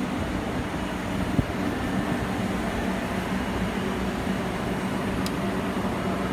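Steady low mechanical hum, with a single short knock about a second and a half in.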